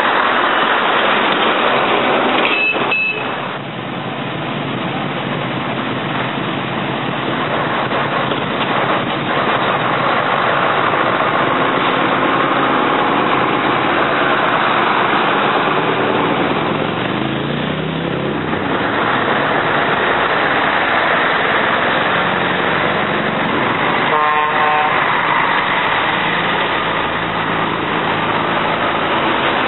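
Scania trucks' diesel engines running as they drive one after another around a bend, one engine's pitch rising midway as it pulls. A brief high toot near the start and a horn blast late on.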